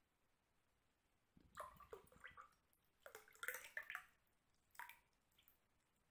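Orange juice being poured into a drinking glass: irregular splashing and gurgling in several bursts, starting about a second in and dying away near the end.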